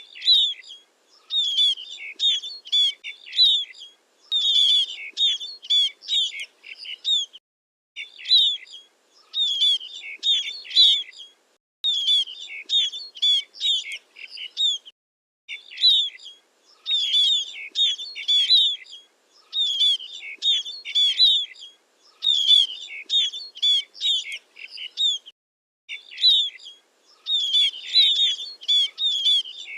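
Scaly-breasted munia calling: bouts of short, high chirps and trills, each lasting two to four seconds, repeated with brief pauses between them.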